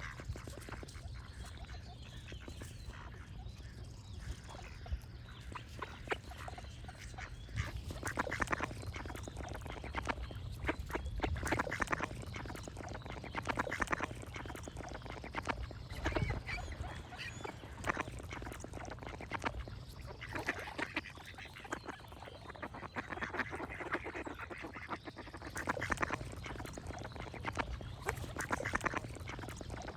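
Ducks quacking in repeated bouts every few seconds, with other birds singing, over a steady low background rumble.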